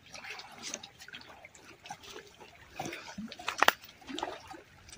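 Shallow river water splashing and trickling at the bank as hands work in it, with scattered small clicks and knocks; the sharpest click comes a little past halfway.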